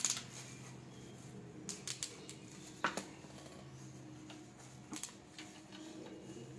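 A handful of light, scattered clicks and taps from a small hand tool working the bolts of a chair being assembled, the sharpest about three seconds in, over a faint steady hum.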